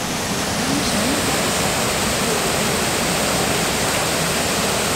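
Muddy floodwater pouring over a farm pond's overflow and cascading down its earthen wall, a steady rushing that grows a little louder about a second in. The pond is full to overflowing after heavy rain.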